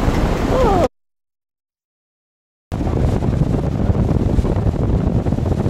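Strong wind buffeting the microphone on a ship's deck, a loud low rumble. About a second in the sound cuts out completely for nearly two seconds, then the wind rumble comes back.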